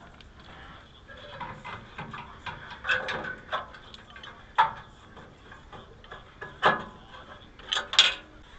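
Irregular metal clinks and knocks of tools and hardware being handled while a turn-signal housing is fitted to a car's bumper, with a close pair of sharp clicks near the end.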